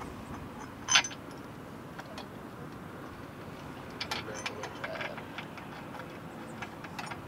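Small metallic clicks and ticks, with one sharper clank about a second in, from hands fitting the fastener that joins the bottom of an aluminium ground-mount leg to its L-foot bracket.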